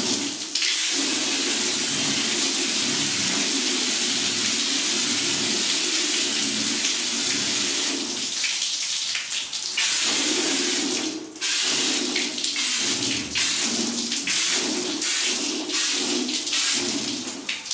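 A hose jet of water splashing onto a car's painted bonnet in a steady hiss, dipping and breaking off briefly a few times as the stream is moved. The paint is being rinsed to test how the water beads and sheets off.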